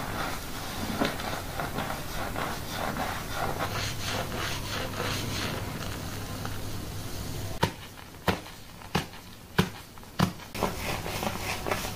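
Hands scrubbing a thick shampoo lather through wet hair and over the scalp, a dense squishing, crackling rustle of foam. In the second half the scrubbing quiets and gives way to a run of sharp wet pops, about one every two-thirds of a second, as the foamy hands press on and lift off the scalp.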